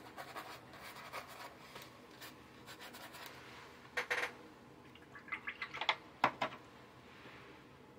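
Faint scratching and rubbing of a watercolour brush on paper, with a louder pair of scratchy strokes about four seconds in and a quick run of light taps and strokes around six seconds.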